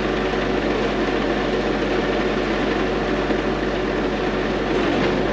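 A heavy vehicle engine idling steadily, with a low, even hum.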